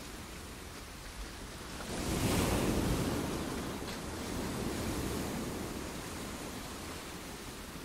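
Wind blowing against the microphone, a steady rush that swells in a gust about two seconds in and again more softly around five seconds.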